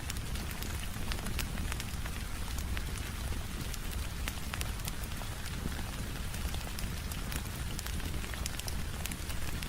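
Steady rain falling, mixed with a wood fire crackling and popping in many sharp, irregular snaps, over a low rumble.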